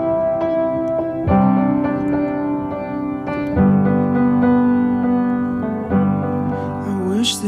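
Background music: a piano playing sustained chords, with a new chord struck about every two seconds. A singer's voice comes in near the end.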